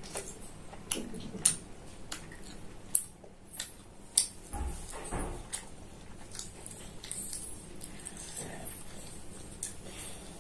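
Close-up mouth sounds of a person chewing a mouthful of mutton liver curry and roti: scattered wet clicks and smacks, a few sharper than the rest.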